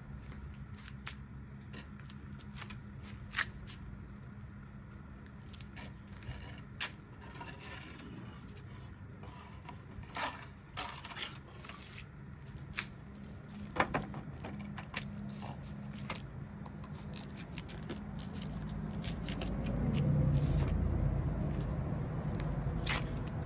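An Alabai (Central Asian Shepherd) puppy mouthing and chewing a paper flyer: scattered paper crinkles, scrapes and clicks, thickest about ten and fourteen seconds in. Underneath runs a steady low hum that swells into a louder low rumble about twenty seconds in.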